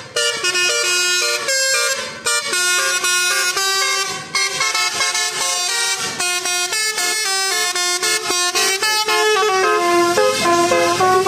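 Indonesian bus telolet horn, a set of electrically switched air horns, playing a quick tune of short notes that step up and down in pitch without a break.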